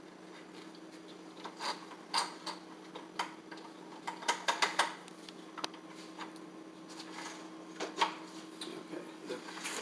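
Scattered light clicks and taps of a horizontal window blind's headrail and valance being handled and fitted at the top of a window, with a quick run of clicks about four to five seconds in.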